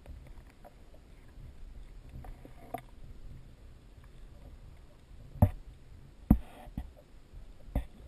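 Muffled water sound heard by a camera submerged in its waterproof housing: a low, steady rumble, with a few light clicks and three sharp knocks in the last three seconds.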